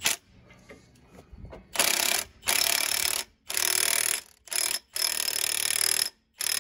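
Milwaukee M18 Fuel 3/4-inch cordless impact wrench hammering in about six short bursts, beginning about two seconds in, as it runs a driveshaft yoke nut up tight.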